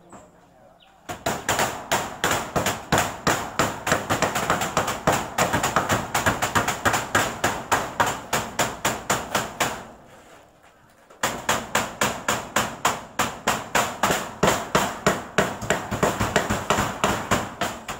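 Hammers striking nails in quick, repeated blows, several a second, with a pause of about a second partway through: storm-damaged houses being repaired.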